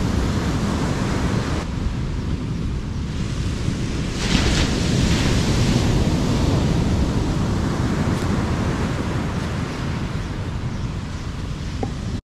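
Ocean surf breaking on a beach with wind buffeting the microphone, a steady rushing noise that swells into a brighter hiss about four seconds in and eases off again about two seconds later.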